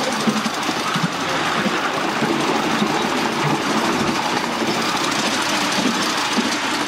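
Miniature railway train running along the track: a steady mechanical running noise from the locomotive and its wheels on the rails.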